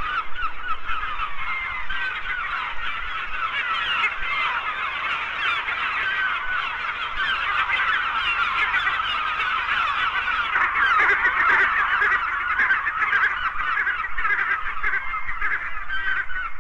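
A large flock of gulls calling together: a dense chorus of many overlapping cries with no break.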